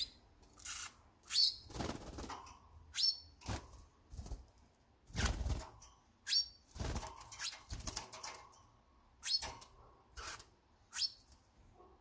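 Pet canary's wings fluttering in repeated short bursts, mixed with short, high chirps.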